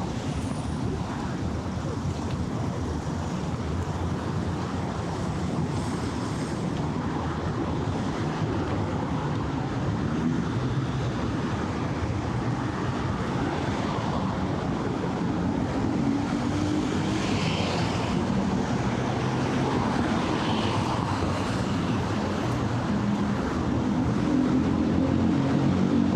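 Steady city traffic noise, with a vehicle engine's hum growing louder toward the end.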